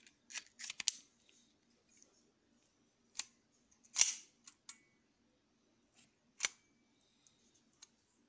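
Colt 1911 pistol with a .22 LR conversion unit being handled: a string of sharp metallic clicks and clacks from its magazine and action, the loudest about four seconds in, some leaving a brief metallic ring.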